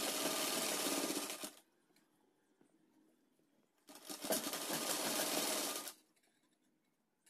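Sewing machine stitching a seam through the fabric in two runs: it stops about a second and a half in, then starts again around four seconds in and runs for about two seconds.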